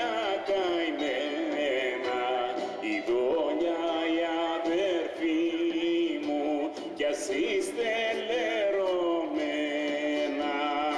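Live band playing a Greek folk song: a melody line of long, wavering held notes that slide between pitches, over acoustic guitar and band accompaniment.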